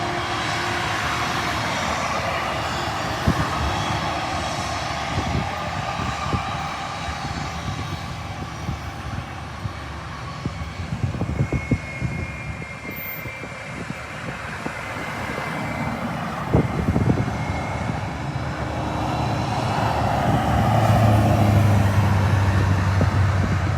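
Jet airliner's engines running, a dense rush of engine noise with a thin whine in the middle and scattered sharp crackles; a low rumble grows louder toward the end.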